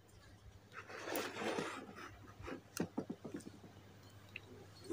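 Faint handling sounds: soft rustling, then a handful of light clicks and taps about halfway through, as a bicycle dynamo and multimeter test leads are moved about on a table.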